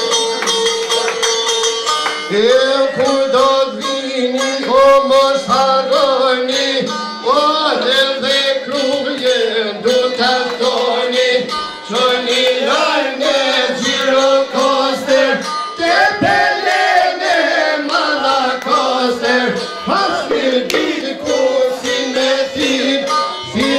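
Northern Albanian folk music. A long held note opens it, then a melody with bends and ornaments carries on over a fast drum beat.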